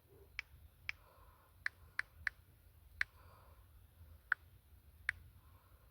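Sharp single clicks at irregular intervals, about eight in a few seconds, like buttons or keys being pressed.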